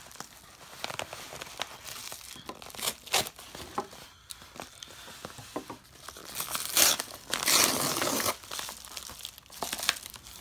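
Yellow padded paper mailer envelope crinkling and tearing as it is slit with a knife and pulled open by hand, in irregular crackles, with a louder stretch of tearing about seven to eight seconds in.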